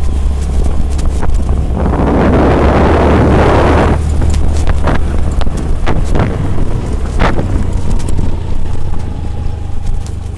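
Honda Activa 125 scooter's single-cylinder four-stroke engine running at low speed on a rough dirt track. About two seconds in, wind buffets the microphone for a couple of seconds, and a few sharp knocks follow as the scooter jolts over the stony surface.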